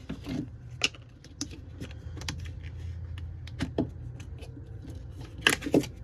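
Hands handling rolls of electrical tape and their plastic cases: scattered clicks and rattles, with a steady low hum underneath.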